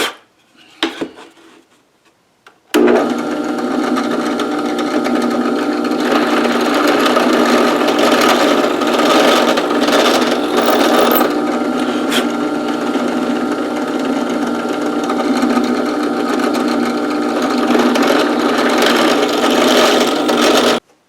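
Electric drill running steadily while boring holes in wood, starting about three seconds in and stopping suddenly just before the end.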